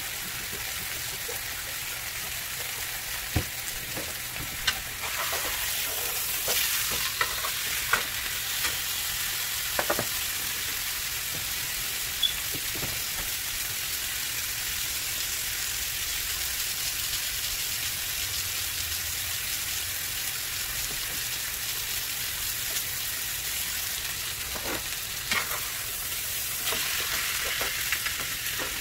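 Bone-in beef steak searing in hot olive oil in a nonstick frying pan: a steady sizzle, with a few sharp clicks and taps in the first ten seconds and again near the end.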